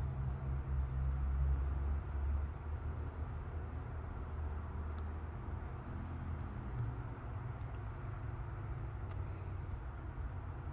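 Crickets trilling steadily and high-pitched, over a low rumble that eases after the first couple of seconds.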